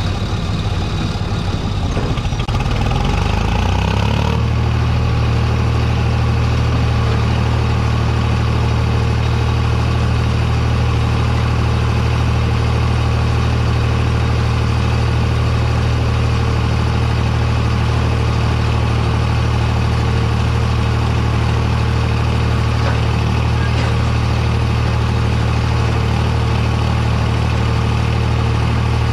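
Farm tractor's diesel engine running. Its pitch rises over the first few seconds, then holds at a steady working speed.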